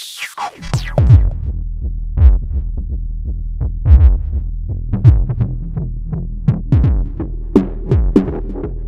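Eurorack modular synthesizer patch featuring the Endorphin.es Queen of Pentacles, playing electronic music. A falling sweep leads in, then a steady low drone enters about half a second in, with kick-like hits that drop sharply in pitch and short clicks in an uneven rhythm over it.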